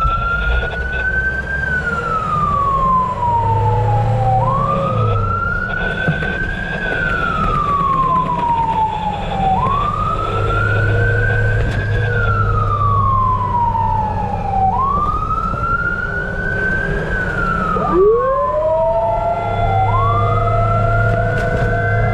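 Fire truck siren wailing, five cycles that each rise quickly and fall slowly, about one every five seconds, over a truck engine's low rumble. Near the end a second siren winds up and holds a steady tone under the wail.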